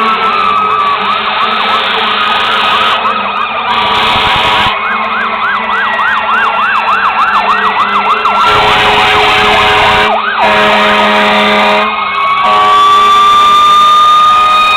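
Several fire truck sirens sounding at once. A fast yelp cycles about three times a second over slower wailing sweeps, with steady horn blasts in the middle and a long, slowly rising wail near the end.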